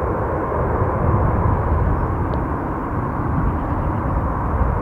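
Airbus A320 jet engines at takeoff thrust during the takeoff roll and lift-off: a steady, deep rumble.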